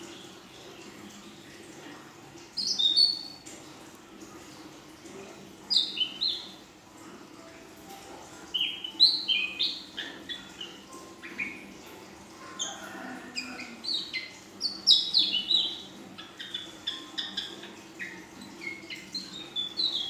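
A female ashy drongo singing: short phrases of quick, downward-sliding whistled notes. They come a few seconds apart at first and run almost without break in the second half.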